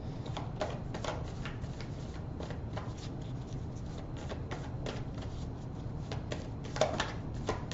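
Tarot cards being shuffled by hand: a run of soft, irregular card clicks and flicks, a little louder near the end.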